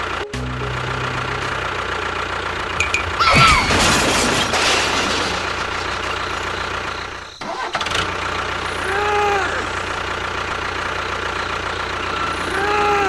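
Engine running steadily, with a louder rushing burst about three seconds in and short rising-and-falling chirps near the end.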